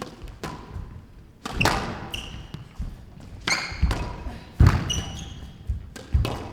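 Squash rally: the ball cracking off rackets and smacking into the court walls, about six sharp hits spaced roughly half a second to a second apart, each echoing in the hall. Short high squeaks of court shoes on the floor come in between.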